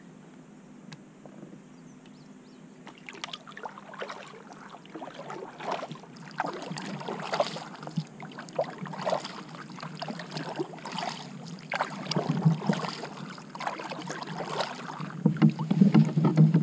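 Kayak paddle strokes: irregular splashes and knocks of the paddle blades in the water, about one a second. Near the end there is louder bumping and rustling.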